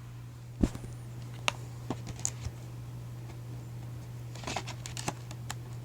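Plastic DVD case and discs being handled: a few light clicks and taps, then a brief rustle, over a steady low hum.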